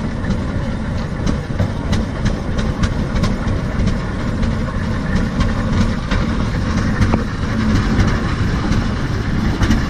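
Antique steel-wheeled tractor driving past, its engine running steadily with a low pulsing beat and repeated clicks from the machine.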